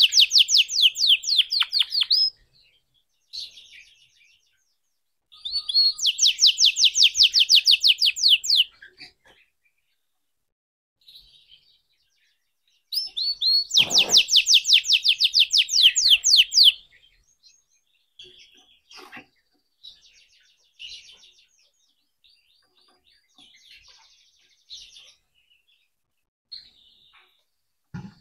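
Red canary singing: three loud, fast trills of rapidly repeated high notes, the second starting about 5 seconds in and the third about 13 seconds in, followed by softer scattered twitters and short phrases.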